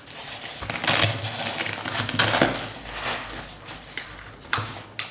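Handling noise from a padded nylon camera backpack, fabric and padding rustling and scraping as a flash gun is pushed into a compartment, with a couple of sharp clicks near the end.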